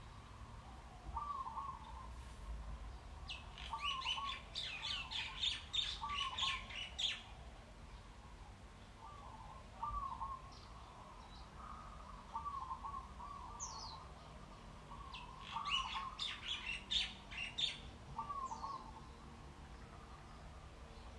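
Birds calling: a short low call repeated every second or two, with two spells of rapid high chirping, one about four seconds in and another about sixteen seconds in.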